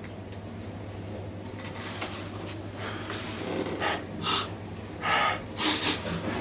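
A man's heavy breaths and snorts: four loud ones in the last two and a half seconds, the final two longest, over a steady low hum.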